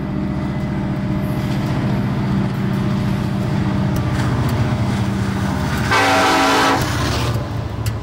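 Diesel freight locomotive approaching with its engines running, with a steady low drone. About six seconds in the locomotive horn sounds one blast of nearly a second, several notes at once.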